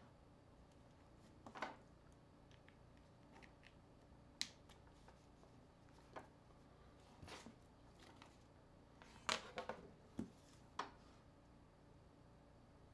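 Faint, scattered clicks and taps of an ASUS ZenFone and its removable back cover being handled and turned over during disassembly, with a quick cluster of clicks about nine to ten seconds in.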